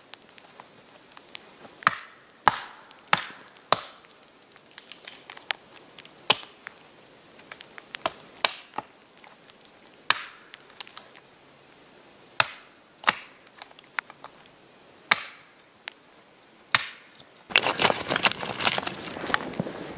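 Hatchet chopping and splitting wood on a stump chopping block: sharp, separate chops one to two seconds apart, some with a short splitting crack.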